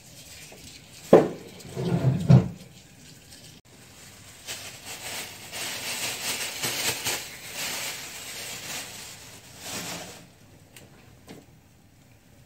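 A few loud knocks and thumps, then a thin clear plastic bag crinkling and rustling as it is handled for several seconds.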